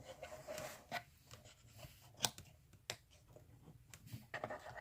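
Faint rustling and a few sharp light clicks and taps as a smartphone and its cardboard box are handled during unboxing.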